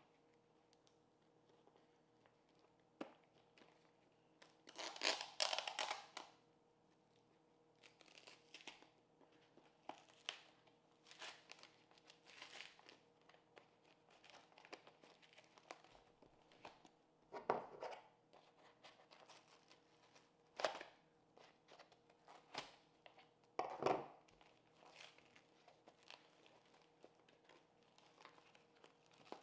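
A cardboard shipping box being pried and torn open by hand: scattered tearing, rustling and crinkling of cardboard and packing, with the longest and loudest tear about five seconds in. Two dull knocks of the box being handled come past the middle.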